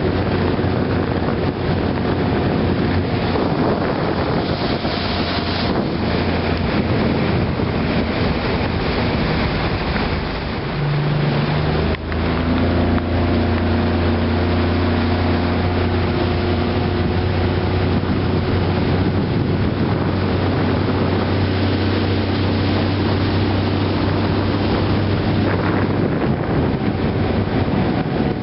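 Motorboat engine running steadily under way, with wind on the microphone. About ten seconds in the engine note briefly drops, then settles back stronger and steadier.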